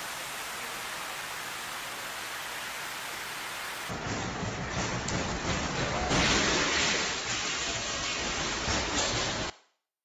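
Storm noise. A steady hiss like heavy rain, then after a cut about four seconds in, louder rain-and-storm noise with a deep rumble, loudest around six seconds, that cuts off abruptly near the end.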